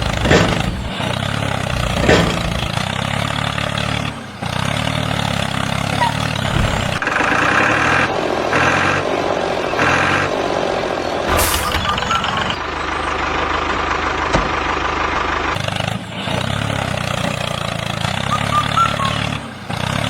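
Heavy diesel engine running at a steady idle, cut off and restarting abruptly every few seconds. A pulsing, higher-pitched sound repeats a few times about midway.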